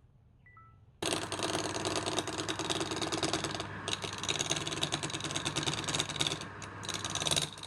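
Wood lathe running, with a turning tool cutting the spinning workpiece: a loud, dense, rapid rattling scrape over a steady motor hum. It starts abruptly about a second in.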